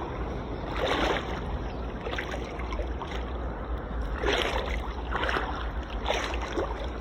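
Steady low rumble of wind on the microphone, with a few short, louder sounds over it.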